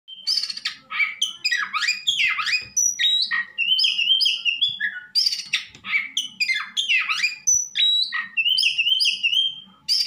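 Oriental magpie-robin singing a loud, varied song of whistles, steep downward-sweeping notes and chatter, delivering much the same phrase twice in a row.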